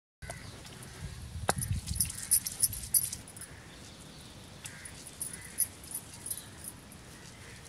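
Stone pestle pounding in a stone mortar, a run of dull knocks, loud for about the first three seconds and softer after, with glass bangles on the wrist clinking along with each stroke.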